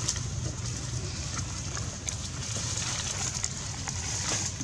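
Dry leaf litter crackling and rustling in a few short clicks as macaques move over it, over a steady low rumble and hiss of outdoor background noise.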